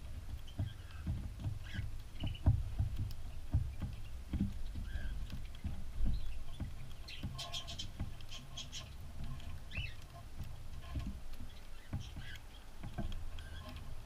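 Cockatiels moving about right against the microphone, giving a string of soft low knocks and bumps. About halfway through comes a quick run of high cockatiel chirps.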